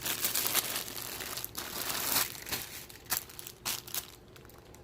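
Packaging crinkling as clothing is handled and pulled out of a shipping box: a dense rustle for the first two seconds or so, then a few sharp separate crackles that thin out near the end.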